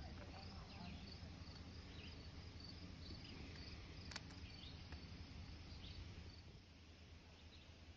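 Faint natural outdoor ambience: scattered short, high, falling chirps over a low steady rumble, with a single click about four seconds in.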